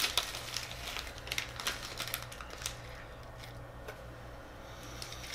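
Plastic snack wrapper crinkling and crackling as it is opened by hand: a quick run of crackles for the first few seconds, then thinning out to a few soft rustles.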